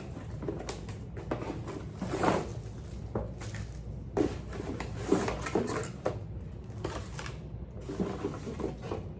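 Cardboard box and plastic packaging being handled while a new hair dryer is unpacked: scattered rustles, taps and light knocks at an uneven pace.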